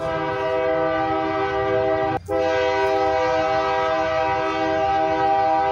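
A horn sounding a chord of several tones in two long blasts: the first lasts about two seconds, then after a short break a second blast holds for about four seconds.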